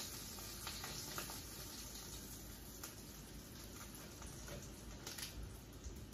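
Oil sizzling faintly in a skillet where rolled potato tacos are frying, with a few light clicks as metal tongs lift them out.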